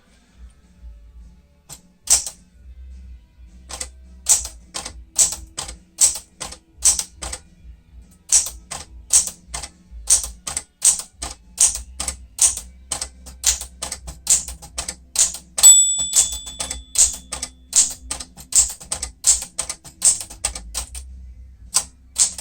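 1965 Sears Citation 12 manual typewriter, a Smith-Corona-built machine, being typed on. A single keystroke is followed by runs of typebars striking the platen at about three strokes a second, broken by short pauses. About two-thirds of the way through there is a brief ringing tone.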